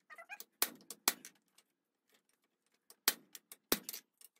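Hand hammer blows on the top die of a blacksmith's guillotine tool, pressing into a red-hot round steel bar on an anvil to set down a shoulder. The sharp strikes come in two pairs of heavy blows about half a second apart, with lighter taps between them and a short pause in the middle.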